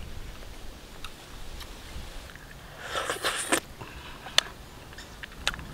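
A person peeling and biting into a small orange wild fruit, with scattered sharp clicks and a short burst of crunching about three seconds in.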